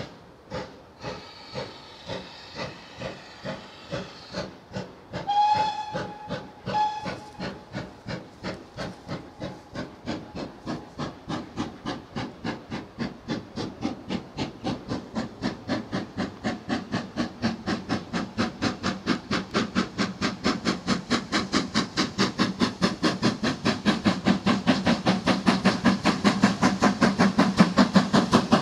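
GWR Manor class two-cylinder steam locomotive No. 7822 pulling away with a train, its exhaust chuffs quickening steadily and growing louder as it comes closer. Two whistle blasts about five seconds in, and a hiss of steam over the first few seconds.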